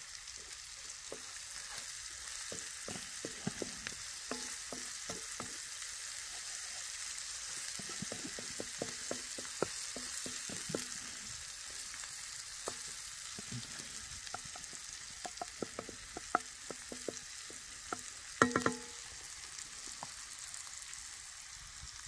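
Praženica of bacon, onion and wild mushrooms sizzling in a frying pan, a steady hiss broken by frequent clicks and scrapes of a utensil stirring the pan. There is a short louder clatter a few seconds before the end.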